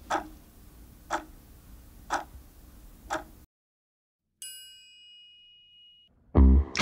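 Clock-ticking sound effect, four ticks a second apart over a low hum, which cuts off suddenly. Then a bright bell-like chime rings out, one tone held for about a second and a half. Loud music with a heavy bass comes in just before the end.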